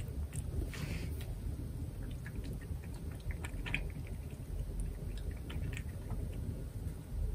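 Russian Blue cat eating wet food from a plate: soft, irregular chewing and small wet clicks, over a steady low background rumble.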